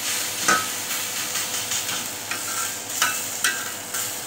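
Seekh kebabs sizzling on a hot flat griddle (tawa) as metal tongs press and turn them to dry off their water. The steady frying hiss is broken by several sharp metallic clinks of the tongs.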